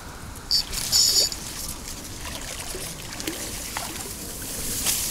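An insect buzzing briefly about half a second in, then water trickling and sloshing in shallow water, with small splashes near the end.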